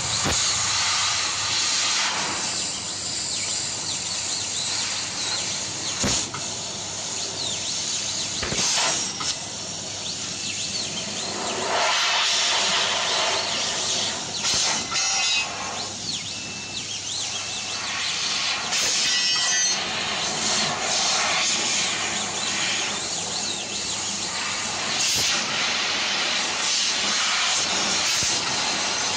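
Fiber laser cutting machine cutting sheet metal: a steady hiss of assist gas blowing from the cutting nozzle, swelling and easing as the head moves from cut to cut, with a few sharp clicks.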